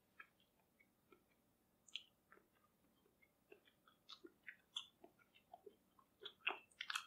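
Faint, sparse mouth clicks and smacks of a person chewing a mouthful of raw beef bone marrow, coming a little more often in the last couple of seconds.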